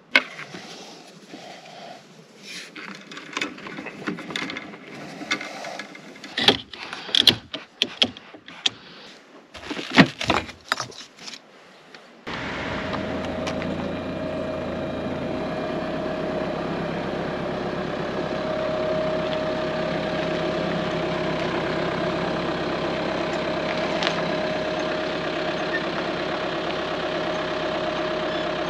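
Irregular knocks and clatter of gear being handled. About twelve seconds in, a small boat's motor comes in abruptly and runs steadily at a low, even speed.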